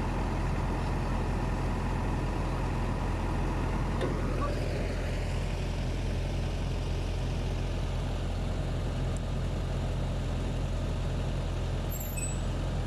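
An engine idling steadily: a low, even hum that does not change.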